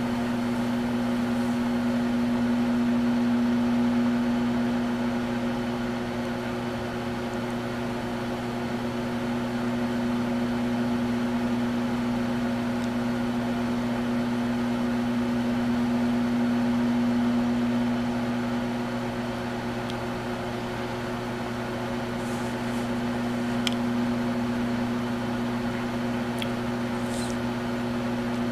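Microwave oven running: a steady electrical hum whose loudness rises and falls slowly, with a few faint ticks near the end.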